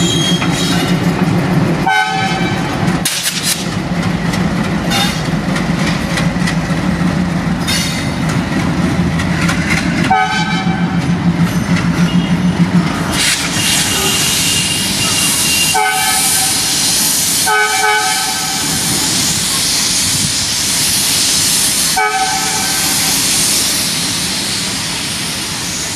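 Two coupled ALCo WDG3A diesel locomotives running light, their engines chugging with a steady low throb. The locomotive horn sounds in short blasts, about five times. From about halfway a high hissing noise rises over the engines.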